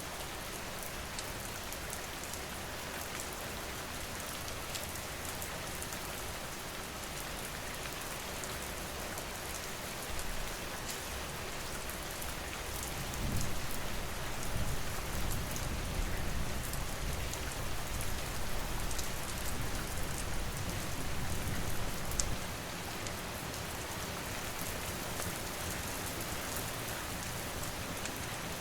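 Steady rain falling, with scattered sharp ticks. A low rumble swells in a little under halfway through and fades out after about nine seconds.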